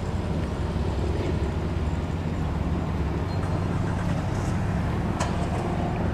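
An engine running steadily nearby, an even low hum, with a sharp click about five seconds in.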